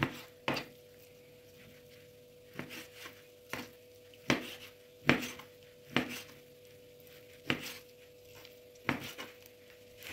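Knife cutting raw horse meat into cubes on a plastic cutting board: irregular sharp taps as the blade comes down on the board, about a dozen in all, over a faint steady hum.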